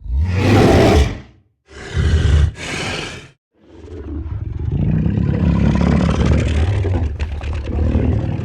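Dinosaur sound effect of a tyrannosaurid roaring: a roar of about a second, two short roars back to back, then one long, deep roar that fades away near the end.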